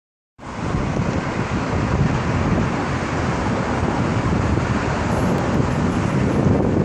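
Wind buffeting the microphone over a steady rush of road traffic noise.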